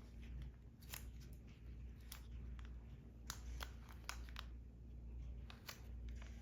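Scattered light clicks and rustles, as of small objects or packaging being handled, over a low steady hum.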